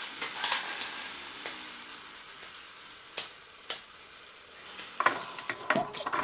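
Foley sizzling like food frying in a pan, a hiss with scattered pops and clicks that dies down over the first few seconds, followed by a short flurry of clicks and rustling near the end.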